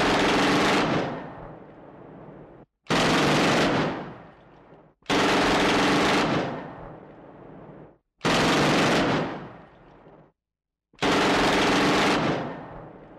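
Machine gun firing in five short bursts of automatic fire, each about a second long and trailing off in an echo, with brief silences between them.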